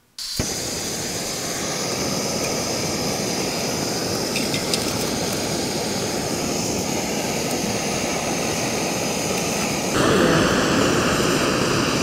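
Backpacking stove burner lit and running with a steady jet-like hiss, stepping up louder about ten seconds in.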